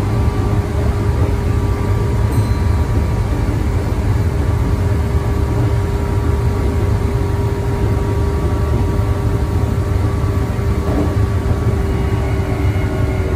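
Meitetsu electric commuter train running, heard from inside the car: a steady low rumble with a faint steady hum of tones above it.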